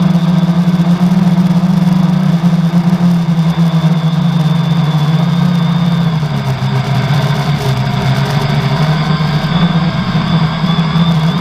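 Quadcopter's four 1000kv brushless outrunner motors with 10x4.5 props running in flight, heard from the onboard GoPro as a steady drone with a thin high whine on top. The drone dips in pitch about six seconds in, as the throttle eases, and comes back up a second later. The uploader says a bad motor bearing can be heard on this flight.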